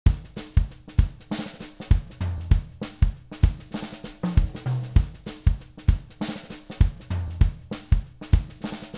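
Background music: a drum kit playing a steady beat of about two strikes a second, with kick, snare and hi-hat over a low bass line.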